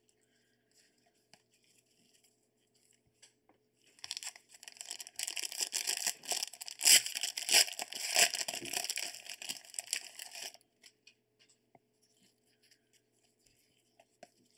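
Plastic wrapper of a trading card pack torn open and crinkled by hand, starting about four seconds in and lasting some six seconds, with light handling ticks before and after.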